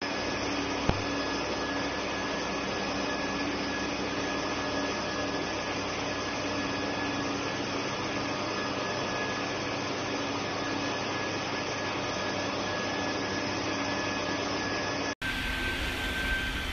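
Automatic hot-air PVC welding machine running: its blower hisses steadily under a steady hum and a thin whine as it drives along the seam. The sound changes abruptly about 15 seconds in to another run of the same kind of machine.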